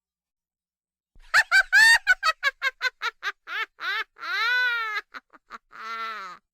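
High-pitched witch cackle sound effect: a quick run of short 'ha' notes starting about a second in, slowing into a few longer drawn-out notes that rise and fall in pitch, ending on one lower note.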